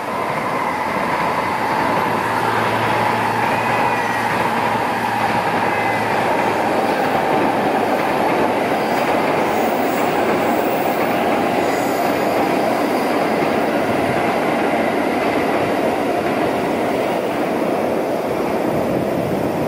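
Tokaido Shinkansen N700-series train passing on the track: a steady, even rumble and rush of wheels on rail that holds at the same loudness throughout, with a faint wheel squeal about three to six seconds in.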